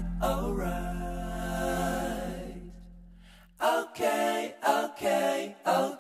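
Background music: a song with a sung vocal line over a low sustained backing. It fades out about three and a half seconds in, then a new phrase of short sung notes begins.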